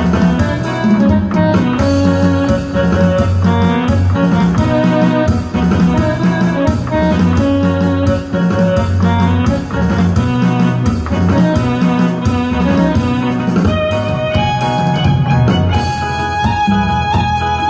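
Electronic keyboard music: a melody played over a steady bass line and drum beat, the arrangement shifting slightly near the end.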